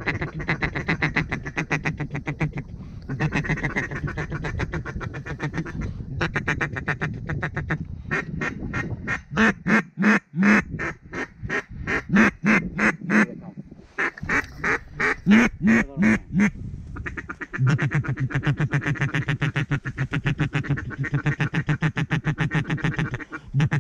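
Mallard duck call blown hard, close by: long runs of fast chattering feed calls, with a louder series of spaced quacks in the middle, calling to ducks to bring them in.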